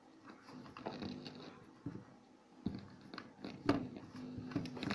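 Handling noise from a handheld camera: scattered light clicks, taps and rustles, the sharpest about three and a half seconds in.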